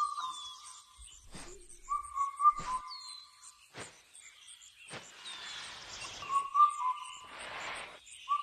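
Birds calling: a whistled call repeats about every two and a half seconds, with short falling chirps higher up and a steady high insect trill behind. Two brief rustling hisses come in the second half.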